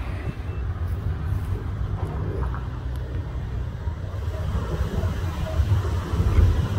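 Wind buffeting the microphone: a low, unsteady rumble.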